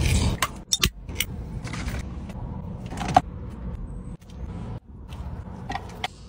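Close-up food handling: crackles, rustles and a few sharp clicks as a burger bun is pulled apart and a crispy fried-chicken burger is squeezed and lifted, over a low steady rumble.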